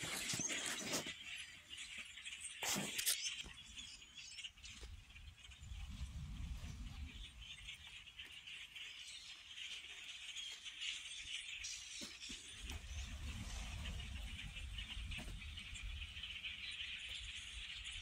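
A huge flock of small dark birds calling all at once, a dense unbroken din of chatter. A few knocks of the phone being handled come in the first three seconds, and low rumbles on the microphone come twice.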